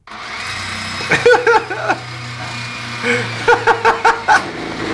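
Someone laughing in short bursts, twice, over a steady low hum.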